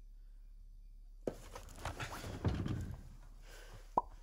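Quiet horror-film soundtrack: a click a little over a second in, then soft rustling and a low thud, and near the end a short cartoon-style pop sound effect.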